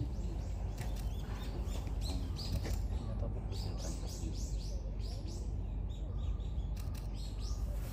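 Birds chirping: many short, high chirps in quick runs over steady low background noise.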